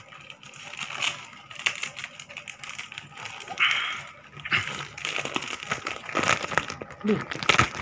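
Thin clear plastic bag crinkling and rustling as it is handled and pulled open, in a run of sharp crackles.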